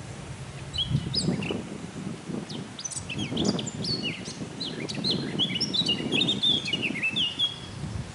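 Male Eurasian blackcap singing: one fast phrase of varied, sliding whistled notes that grows busier and denser in its second half. A low rumble runs underneath.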